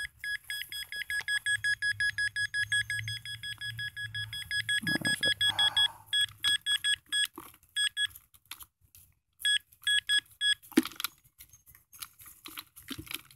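Nokta pinpointer beeping rapidly as it is held against a handful of dug soil, signalling the metal target in the hand. The run of high beeps breaks off about six seconds in, then comes back in short runs until about ten seconds in, followed by soft scraping of soil in the glove.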